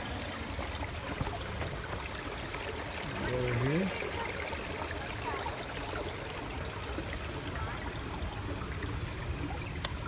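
Small spring-fed stream trickling over rocks, a steady wash of running water from a flowing trail water source. About three seconds in, a person's voice gives a brief rising hum.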